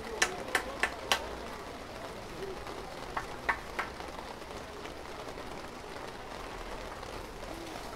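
Street-market ambience: a steady hiss of background bustle with a faint murmur of distant voices. A quick run of five sharp clicks or knocks comes near the start, and three more come a few seconds in.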